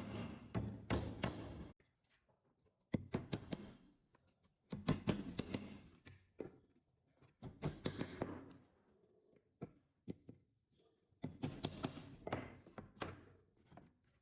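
Bursts of quick knocks and taps, wood being struck or worked by hand, in about five groups of one to two seconds each with short pauses between.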